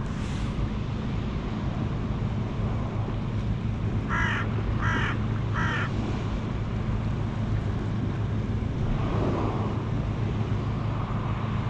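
A crow caws three times, about a second apart, over a steady background of surf and wind noise with a low hum.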